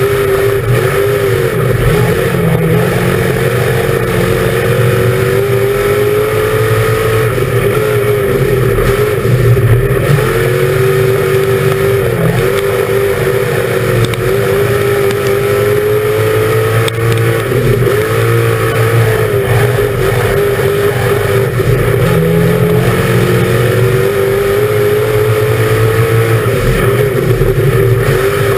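Dirt-track race car engine at racing speed, heard from inside the cockpit. It runs hard and loud, the engine note dipping and climbing again every few seconds as the throttle comes off and goes back on around the oval.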